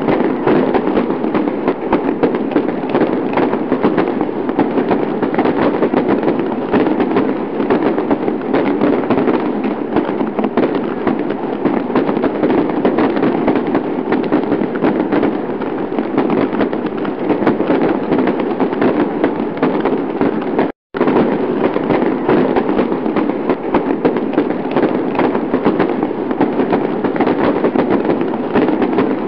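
Fireworks sound effect: dense, continuous crackling and popping of many fireworks and firecrackers going off together, with a brief break about two-thirds of the way through.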